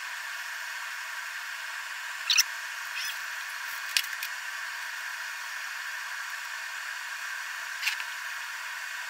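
Steady hiss with a few short, sharp clicks and taps, the loudest about two and a half seconds in, as a stepper motor cable plug is worked into the Z motor's socket on a 3D printer; it is a tight fit.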